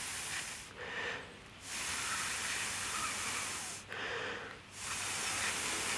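Breath blown onto a smouldering cramp ball (Daldinia concentrica) ember to bring it up, heard as a steady hiss of air. It comes in three long blows, each about two seconds, with short pauses between.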